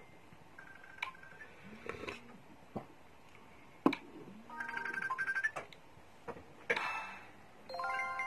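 Scattered electronic beeps and tones with sharp clicks, like a phone ringtone or an intro sound effect: a rapid string of beeps about halfway through and several steady tones held together near the end. The loudest sound is a single sharp click about four seconds in.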